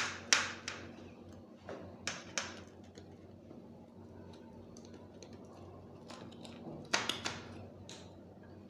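Pizza cutter wheel rolling through a baked pizza crust, crunching in short strokes. One cluster comes in the first two and a half seconds and another about seven seconds in.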